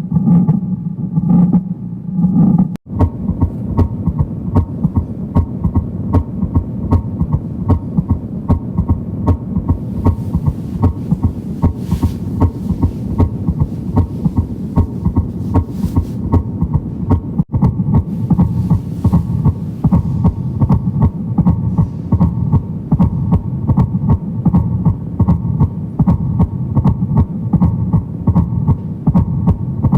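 Recorded heart sounds: a steady, repeating heartbeat over a constant hum. About three seconds in, the recording cuts to another heart-sound track whose beats come faster.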